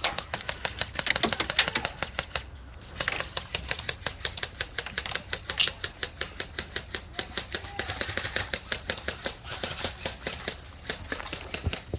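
Airsoft guns firing: rapid sharp clicks, several shots a second in uneven strings, with short lulls about two and a half seconds in and again near the end.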